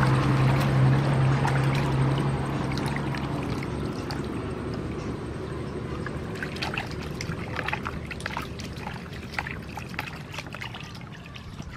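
Water sloshing and splashing in a plastic basin as a raw chicken is washed by hand, with scattered drips and small splashes. A low steady hum fades away over the first few seconds.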